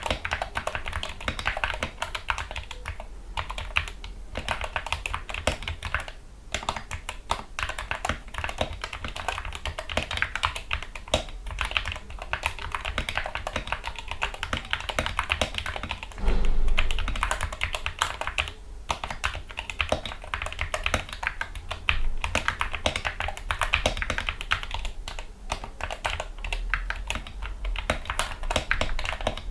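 Continuous fast typing on a Gamakay MK61 mechanical keyboard fitted with lubricated Gateron Yellow optical linear switches, PBT keycaps and foam dampening. A single louder, deeper thump comes a little past halfway.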